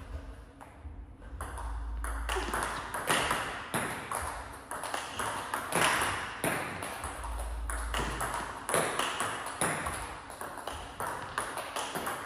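Table tennis balls struck in a multiball drill: a rapid, irregular run of sharp pings as the ball meets the bats and bounces on the table.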